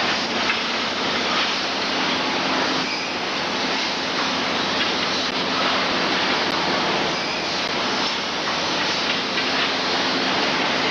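Steady din of factory woodworking machinery working wooden shovel handles: a loud, continuous mechanical noise with a low, even hum underneath.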